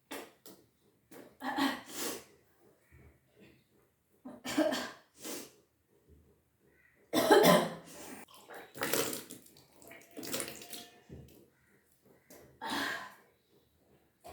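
A person retching and gagging in repeated short bursts, the loudest about halfway through, with water gushing and splashing out. This is deliberate vomiting of drunk water in the kunjal kriya (vaman dhauti) yogic cleanse.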